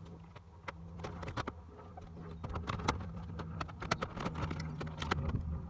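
Irregular light plastic clicks and taps from a VW T4 instrument cluster being handled and fitted into the dashboard, over a low steady hum.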